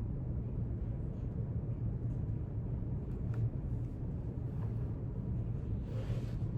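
Steady low background rumble of room ambience, with a few faint small clicks around the middle and a brief soft hiss near the end.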